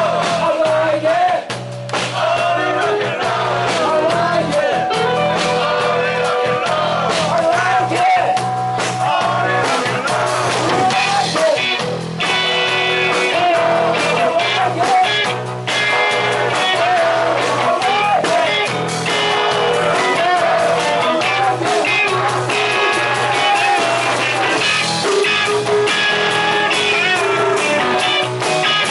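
Rock and roll song: electric guitars and drums with a wavering lead vocal line, loud and continuous.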